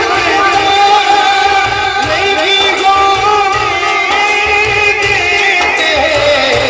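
A man singing a devotional naat through a PA system, with long held notes and ornamented runs over a low steady beat.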